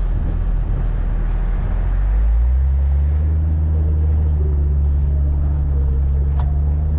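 Jeep driving: a low, noisy road rumble, then about two seconds in a steady low engine drone comes up as it pulls ahead and holds.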